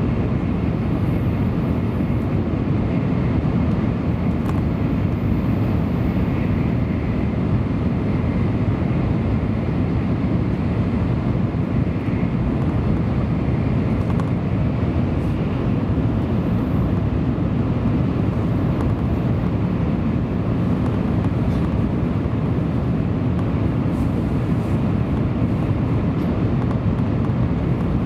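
Steady low rumble of a Tokaido Shinkansen train running at speed, heard from inside the passenger car, with a faint high whine in the first part.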